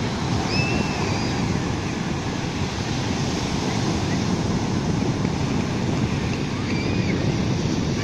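Sea surf breaking and washing up a sand beach: a steady, continuous rush of waves.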